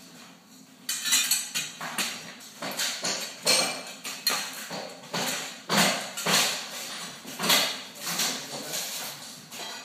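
Irregular metallic clanking and knocking as demolition debris is handled on a rubble-strewn floor, a sharp clank roughly every half second to a second.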